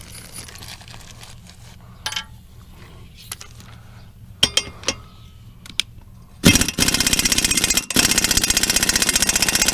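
Air impact wrench hammering on a mower blade bolt to break it loose, a fast rattling burst of about three seconds that starts about six and a half seconds in, with one short break. Before it come a few light metal clinks of tools.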